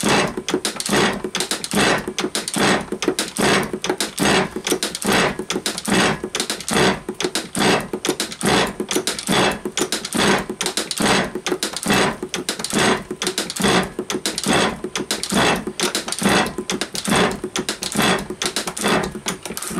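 A small hand-cranked metal shaper cutting along the chain-drilled edge of a metal plate: the tool scrapes and clatters in a steady rhythm, stroke after stroke, with a long stroke and a fair bit of feed.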